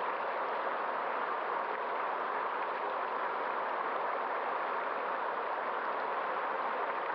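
A stream of running water, flowing with a steady, even rush.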